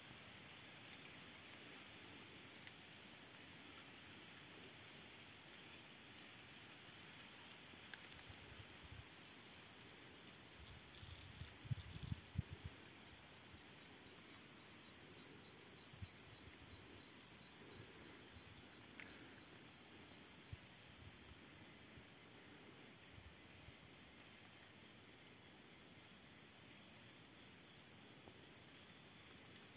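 Faint, steady night chorus of crickets and other insects, an unbroken high-pitched trilling, with a few low soft thumps about twelve seconds in.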